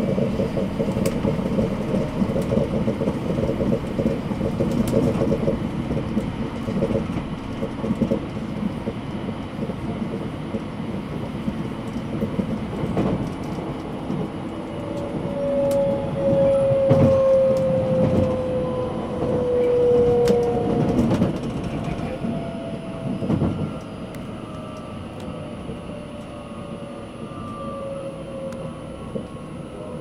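Running noise heard inside a 683-series electric train: a steady rumble of wheels on rail with a few sharp clicks. From about halfway through, the traction motors' whine slides down in pitch and the rumble grows quieter as the train brakes to a stop at the station.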